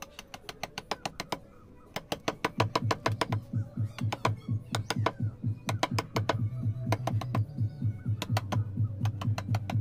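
Metal chisel being tapped into soft carving stone in a quick run of sharp clicking strikes, several a second, with a short break about a second and a half in. Background music with a low beat plays underneath.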